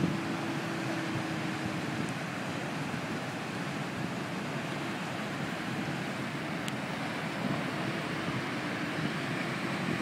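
Steady rushing of water churned along the hull of the departing cruise ship Celebrity Constellation, mixed with wind. A faint steady hum from the ship fades out about two seconds in and returns near the end.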